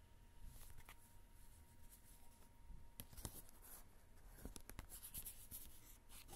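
Faint rustling and scraping of glossy photo cards being handled and slid against each other, with a few light clicks.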